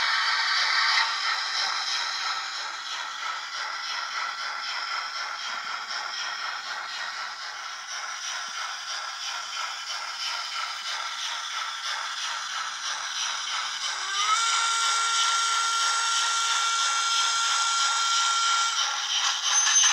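Sound decoder of an H0-scale Württemberg G12 steam locomotive model playing steady steam running sound: a rapid mechanical chuffing rattle from the model's small speaker. About 14 seconds in, a several-note steam whistle blows, sliding up briefly and then held for about four and a half seconds.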